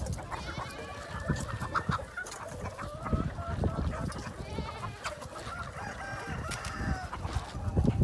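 A large flock of free-range chickens clucking and calling all at once, many overlapping calls, with roosters crowing among them.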